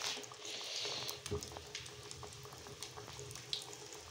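Potato samosas deep-frying in hot oil in a small karahi: a steady sizzle with scattered small pops and crackles, hissing louder for about a second near the start, just after fresh samosas have gone into the oil.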